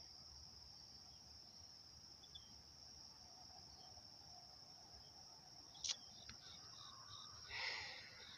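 Faint, steady high-pitched drone of insects in the background. A single short click comes about six seconds in, and a brief rustle of the phone being handled follows near the end.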